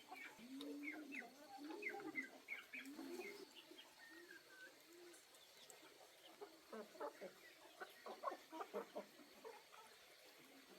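Chickens clucking faintly, a run of low rounded clucks in the first half with many short high chirps over them, then fainter scattered calls.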